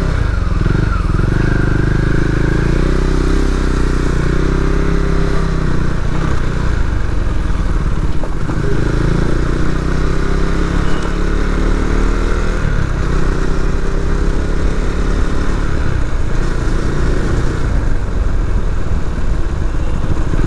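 Motorcycle engine running steadily as the bike is ridden along a road, its pitch rising and falling several times as it speeds up and changes gear, over a constant rush of wind noise.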